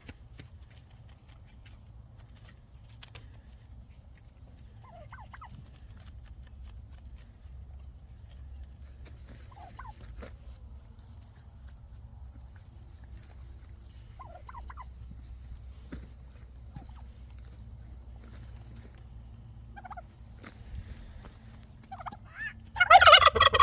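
Domestic turkeys calling: faint short calls every few seconds, then a loud gobble near the end.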